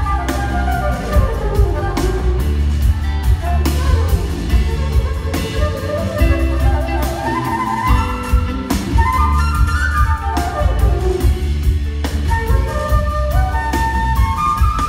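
Live band with a flute soloing in long rising and falling runs of notes over bass, drums and electric guitars.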